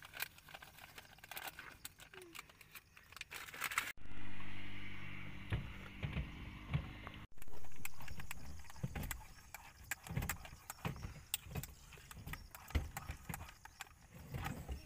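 A metal spoon clinking and scraping against a ceramic mug as a drink is stirred, in quick irregular taps. A few seconds in, a louder steady hum with low tones cuts in suddenly, fades over about three seconds and stops abruptly.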